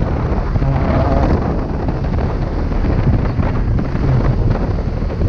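Wind buffeting the microphone on a moving motorcycle, over the steady running of the motorcycle's engine.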